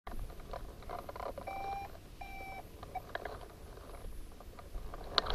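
Two short electronic beeps of the same steady pitch, about half a second apart, a little over a second in. Light clicks and rustling from handling, with a low wind rumble, run under them.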